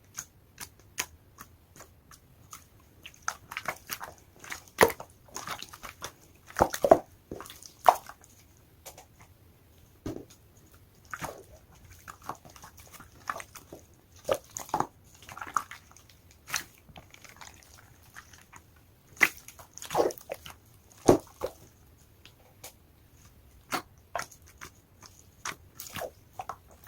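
Glitter slime being squeezed, poked and stretched by hand: irregular sticky clicks, pops and squishes, with a few louder squelches.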